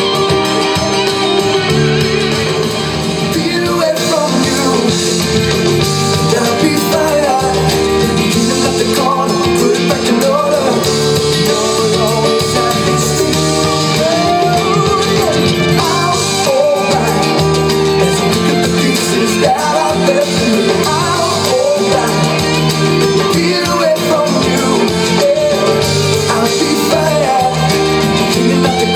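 Music: a pop-rock song with guitar and a singing voice, playing steadily.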